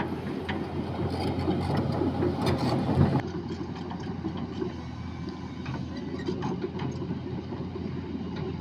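Heavy diesel machinery running steadily, with irregular metallic clanks and rattles over the engine hum, a little quieter after about three seconds.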